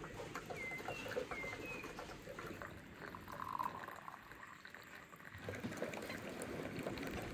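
Tea and hot water being poured into glass tea cups from a teapot and a samovar's tap, a thin stream trickling into the glass. A few short bird chirps in the first couple of seconds.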